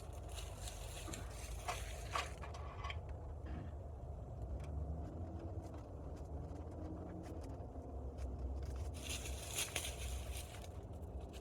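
Steady low rumble, with scattered light clicks and scrapes of hands working on the trellis parts and a louder click near the end.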